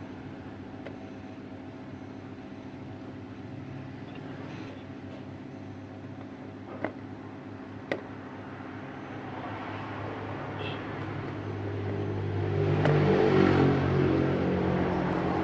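A steady motor hum with two sharp clicks in the middle, then a passing motor vehicle that grows louder, peaks about two thirds of the way through and eases off.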